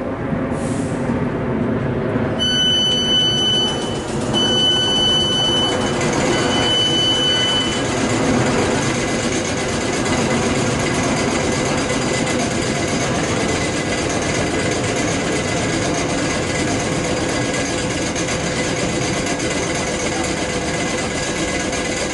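Class 455 electric multiple unit standing at the platform with a steady electrical and mechanical hum. Three long electronic beeps, each about a second, come close together in the first eight seconds.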